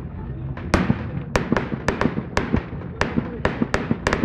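Fireworks going off: a rapid, irregular run of sharp bangs, several a second, each fading quickly.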